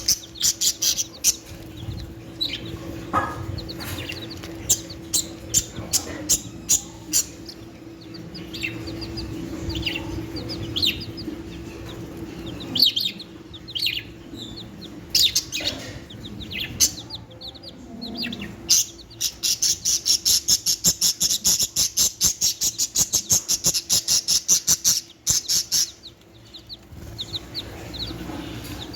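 Chicks peeping and budgerigars chirping: many short, high calls, with a fast even run of chirps, about six a second, for several seconds past the middle. A steady low hum runs underneath.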